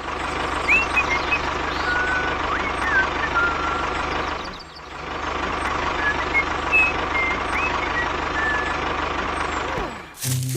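A truck engine running steadily with a low throb, with scattered short chirps and whistles over it. The sound drops out briefly about halfway through, then carries on the same.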